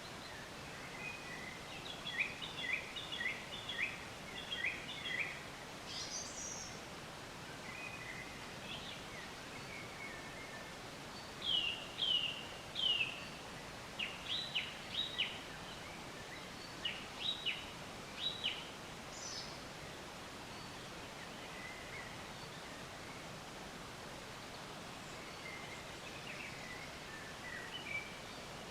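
Forest birds singing in scattered phrases of short, repeated chirping notes, with a couple of higher single calls, over a steady background hiss. The busiest singing comes a few seconds in, then again from about the middle, and it thins out toward the end.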